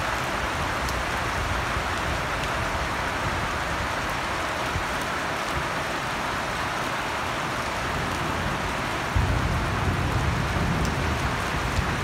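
Heavy rain falling steadily, a dense even hiss of drops. About nine seconds in, a low rumble suddenly joins it.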